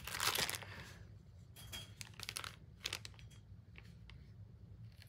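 Knife packaging being handled: a louder rustle and crinkle at the start, then scattered soft rustles and small clicks.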